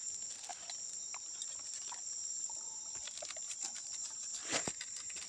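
Steady high-pitched drone of insects in the forest, with scattered light clicks of a plastic bottle being handled and one sharper click near the end.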